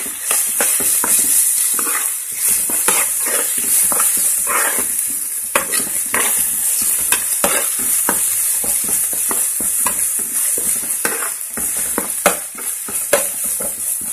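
Chopped onions, green chillies and ginger-garlic paste sizzling in hot oil in a metal pan, a steady high hiss, while being stirred, with frequent short scrapes and clicks of the utensil against the pan.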